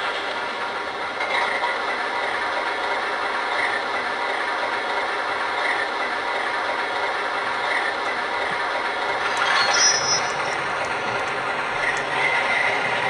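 Model electric train running on its track: a steady rattling hum of wheels and motor, with a light click about every two seconds and a short high squeak about ten seconds in.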